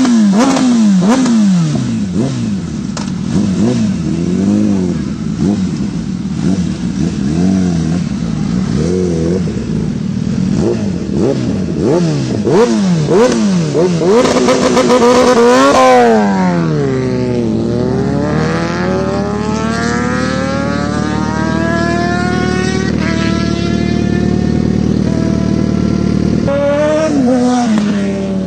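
Kawasaki Ninja sport bike engine revved again and again in quick throttle blips, its pitch jumping up and falling back. About halfway through it settles into one long rising pull as the bike accelerates, with a couple of gear changes near the end.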